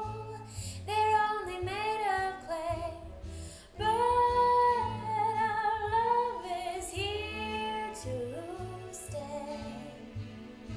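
A woman singing a slow jazz ballad, holding long notes that glide and bend, over a soft instrumental backing.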